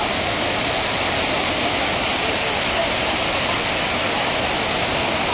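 Steady rush of stream water cascading over rocks below a waterfall, a continuous even noise with no breaks.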